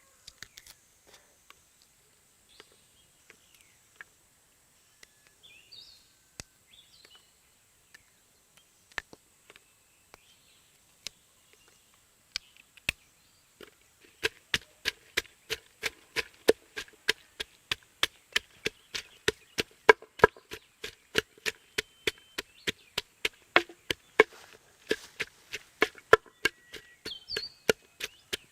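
Knife chopping on a wooden cutting board: a few scattered taps at first, then from about halfway steady rapid chopping at about two to three strokes a second. A few short bird chirps sound early on.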